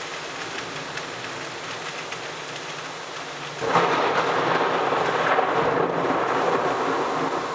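Heavy rain pouring steadily, then about three and a half seconds in a sudden clap of thunder that rumbles on to the end.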